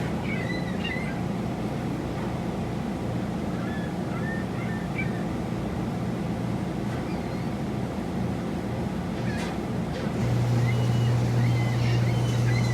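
A steady low mechanical hum, like an engine drone, that gets louder about ten seconds in, with birds chirping over it now and then.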